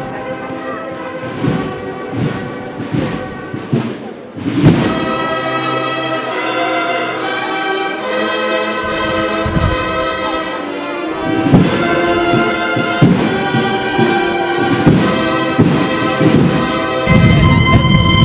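A procession band's trumpets or cornets playing a slow march in long held chords, coming in about four seconds in after a few sharp thumps. A low rumble builds under them near the end.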